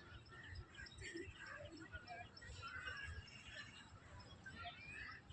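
Several small birds chirping and calling at once, faint, with many short overlapping chirps and trills, over a low uneven rumble.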